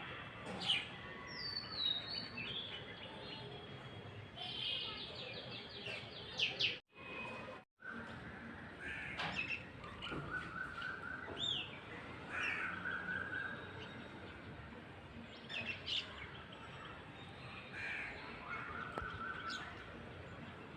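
Several birds calling: short chirps, quick trills and rising and falling whistled notes over a steady background hiss, with two very short drops to silence about seven seconds in.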